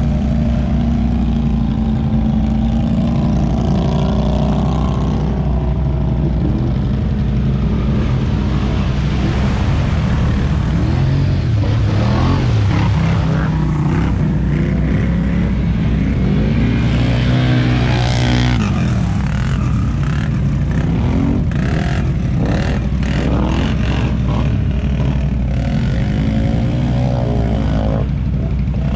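ATV engines running: a nearby quad idles steadily throughout, while other quads rev up and down as they ride through the water, mostly near the middle.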